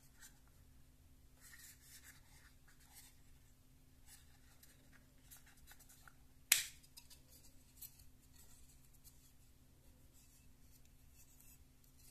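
Faint rubbing and scratching of a GoPro Shorty plastic extension pole being handled, with one sharp click about halfway through and a softer click a second later.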